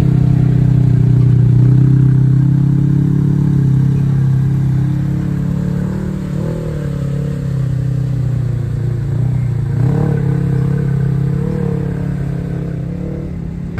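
Side-by-side UTV engine revving as the machine drives out of a muddy ditch onto sand, its pitch rising and falling repeatedly in the second half.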